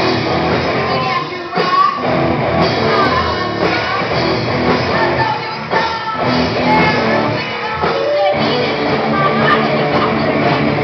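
Live rock band playing: a singer over guitars, bass guitar and drums, loud and continuous.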